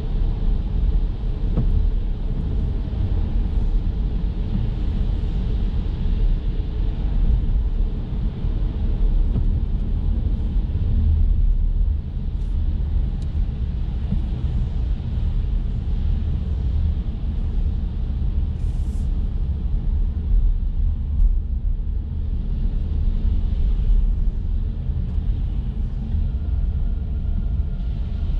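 Steady low road rumble and tyre noise of an electric Chevrolet Bolt driving on wet city streets in light rain.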